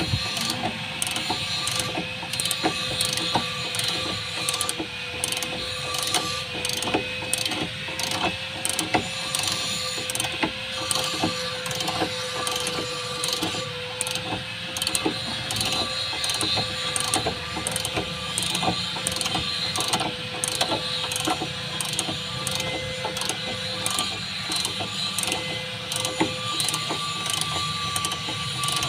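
Wrench work on the power-steering pipe fittings of a Toyota Hiace rack and pinion: rapid, irregular metallic clicking as the fittings are tightened, over a steady hum.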